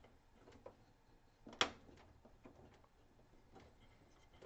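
Faint handling noise with one sharp click about a second and a half in, and a few softer ticks, as a 486DX33 processor is pressed into its motherboard CPU socket.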